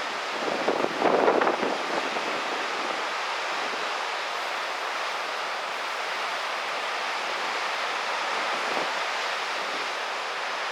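Ocean surf and wind blowing across the microphone: a steady rushing noise, with a louder rush about a second in.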